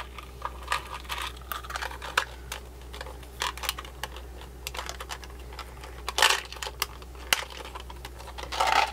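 Small stone lava beads clicking and rattling as they are picked up and handled on a work board, in irregular taps with louder clatters about six seconds in and near the end, over a steady low electrical hum.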